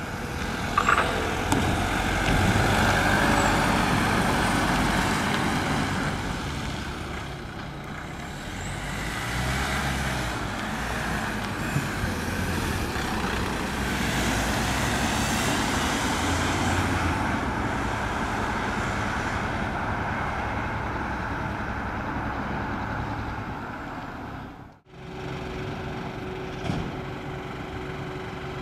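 Emergency vehicle engines: an ambulance van pulls away and drives off, with engine and road noise. After a sudden break near the end, a heavy engine idles steadily with a constant hum.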